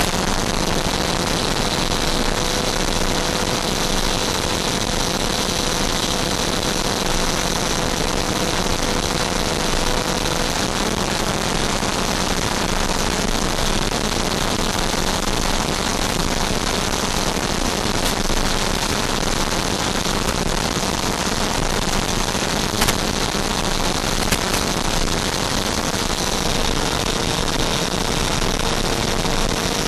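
Freewing F-5 electric ducted-fan model jet in flight, heard from its onboard FPV camera: a steady, even rush of fan and airflow noise with hiss. Two brief clicks come about three-quarters of the way through.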